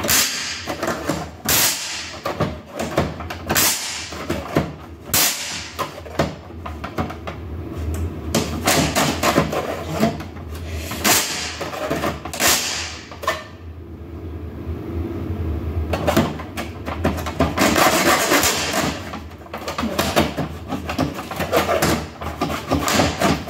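Hand saw cutting through a metal door sweep strip held in a plastic miter box: irregular rasping back-and-forth strokes, with a pause of a couple of seconds about midway.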